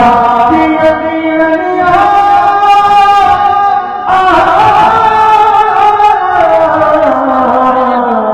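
A man reciting a naat: one amplified male voice singing long, drawn-out melodic notes that glide from pitch to pitch, the line falling lower near the end.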